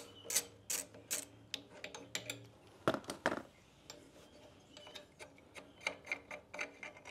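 A ratchet wrench clicking in short runs as the sidestand pivot bolt is unthreaded, with two louder clicks about three seconds in.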